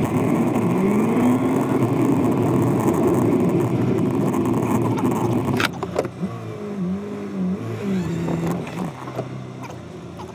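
A car driving, with engine and road noise. About six seconds in, the sound cuts off sharply and goes on quieter.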